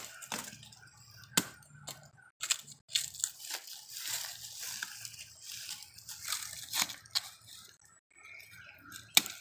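Kitchen knife chopping into fresh bamboo shoots and stripping their husk sheaths: irregular sharp cracks and snaps with crunching and rustling in between.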